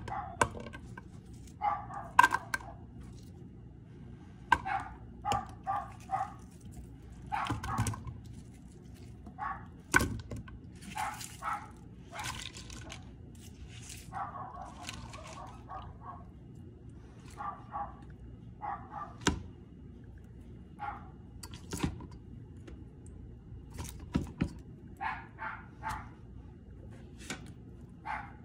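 An animal's short, high calls repeated in clusters of two to four every few seconds, with a few sharp knocks in between.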